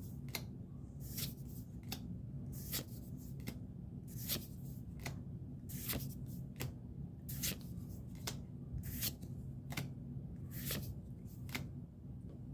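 Pokémon trading cards being flipped through by hand, each card sliding off the stack with a short, crisp swish, about one or two a second at an uneven pace, over a steady low hum.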